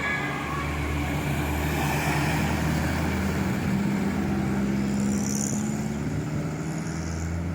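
Bus engine running with road noise, a steady low drone that shifts slightly in pitch about halfway through.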